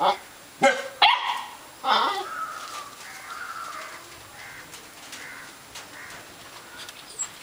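A large dog barking behind a kennel gate: three loud barks in the first two seconds.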